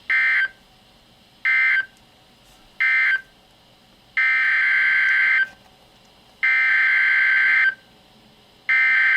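NOAA Weather Radio EAS/SAME digital data bursts: three short end-of-message bursts closing the severe thunderstorm warning, then three longer header bursts, each about a second and a quarter, opening the next alert. Each burst is a harsh, buzzing two-tone data tone.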